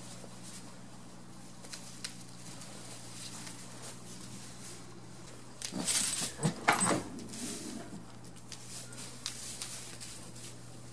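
Goats moving about in a straw-bedded wooden stall: faint rustling and small knocks, with a brief louder flurry of rustling and bumps about six seconds in.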